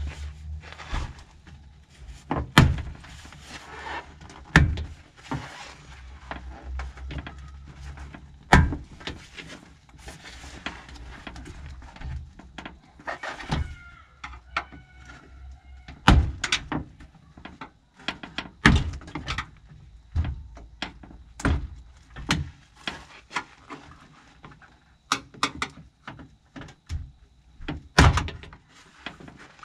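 Plastic trim clips popping out one by one as a Nissan GQ Patrol's door card is pried off the door by hand: a string of sharp pops and knocks at uneven intervals, a few of them much louder, with the panel knocking against the door in between.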